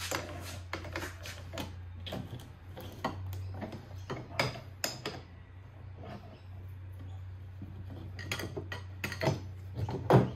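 Scattered metallic clinks and knocks of hand tools working a Pitman arm puller on a steering box, over a steady low hum.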